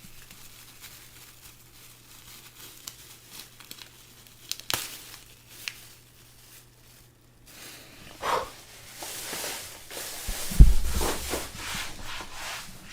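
Handling noise: rustling and crinkling of paper or plastic packaging with a few sharp clicks, and a low thump about ten and a half seconds in.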